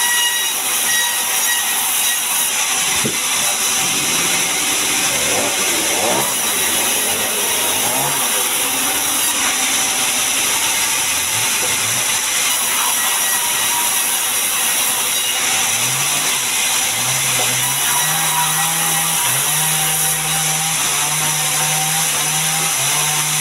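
Sawmill band saw running, its blade ripping long boards off a mahogany log, a loud, steady mechanical noise with a high hiss. A low hum joins in during the second half.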